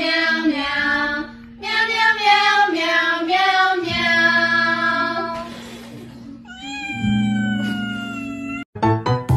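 A song sung in "meow" syllables over a simple backing track. About five and a half seconds in comes a short breathy puff as the candles are blown out. A long, slightly falling meow-like note follows and cuts off abruptly; jingly music starts right at the end.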